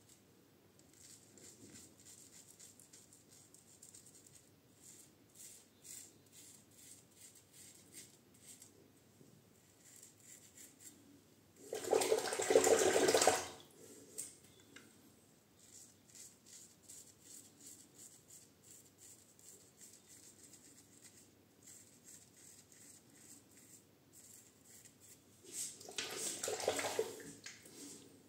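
Safety razor (a Goodfellas' Smile Syntesi with a Kai blade) scraping through a long, lathered beard in many short, quiet strokes. Twice, about twelve and twenty-six seconds in, water runs briefly and louder from a tap, as when the razor is rinsed.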